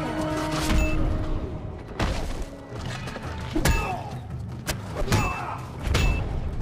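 Movie fight soundtrack: a series of heavy punch and blunt-weapon hit effects, about six thuds spaced roughly a second apart, over a driving action music score.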